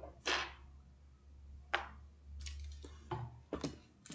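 Several light clicks and taps, unevenly spaced, as small pots of fabric paint are handled and set down on the painting table.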